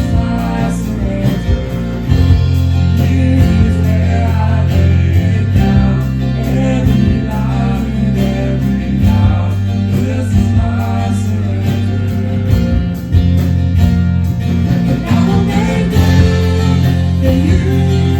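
Live worship band playing a slow contemporary worship song: guitar and held bass notes under singing voices.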